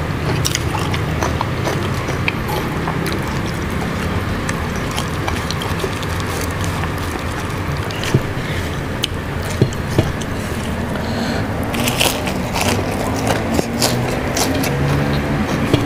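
Close chewing and crunching of raw vegetables and leaves, with scattered sharp crunches and clicks, over a steady low hum in the background.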